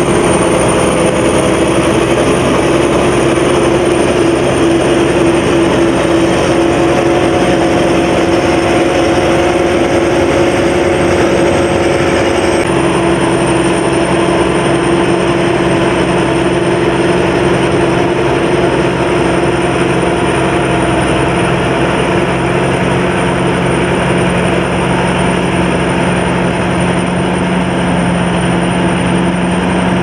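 Combine harvester running while cutting and threshing rice. The KM-D No.2's 220 hp turbodiesel and its threshing machinery give a steady mechanical drone with a high thin whine over it. The sound changes abruptly about twelve seconds in.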